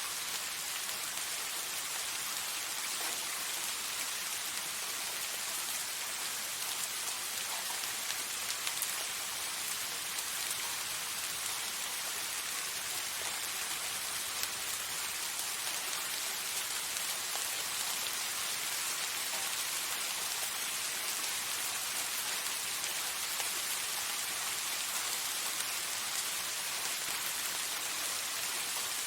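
Steady soft rain falling, an even hiss of drops with faint tiny patters scattered through it.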